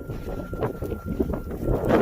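Wind buffeting the microphone in a snowstorm: irregular gusty rumbling with scattered crackles.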